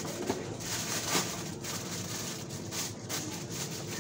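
Supermarket background noise: a steady even hiss, with two short clicks about a third of a second and a second in.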